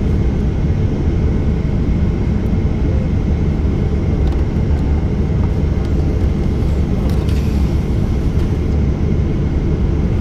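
Steady cabin rumble of a Boeing 737-800 with its CFM56-7B turbofans at idle while the aircraft holds almost still, heard inside the cabin, with a faint steady high whine on top. A short hiss about seven seconds in.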